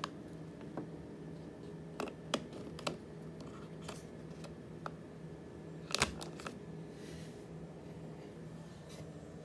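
Scattered small plastic clicks and taps from handling a green fiber optic connector at a plastic wall outlet, with a cluster of louder clicks about six seconds in. A faint steady hum runs underneath.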